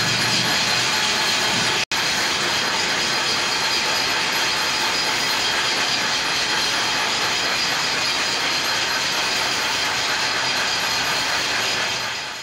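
Wire-crimping machine for steel mesh running with a steady, fast mechanical clatter, broken off for a moment about two seconds in and fading near the end.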